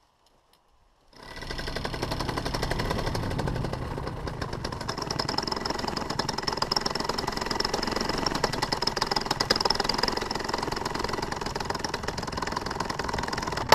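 Paramotor's two-stroke engine starting about a second in and then running at low revs, a continuous rapid rattling drone. The propeller is held only by three loosening bolts, the other three already backed out of the belt pulley, just before it tears free.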